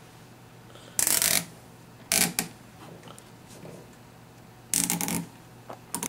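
Nylon cable tie ratcheting tight around a scooter's brake lever and handlebar grip, cinched in three short pulls, each a quick zipping rasp, to hold the rear brake on.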